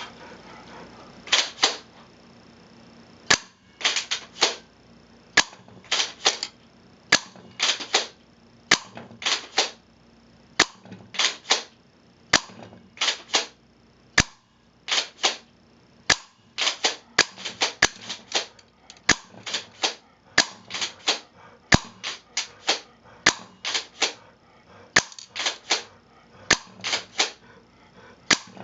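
M47 pump-action airsoft shotgun fired over and over, each sharp shot followed by the clack of the pump being racked back and forward to chamber the next BB, about one shot every one and a half to two seconds.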